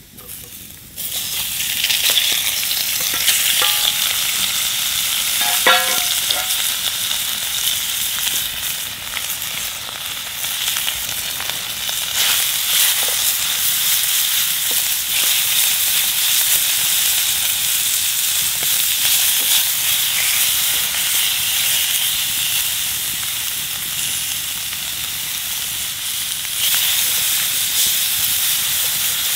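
Loud, steady sizzling hiss full of small crackles, starting about a second in and cutting off abruptly at the end.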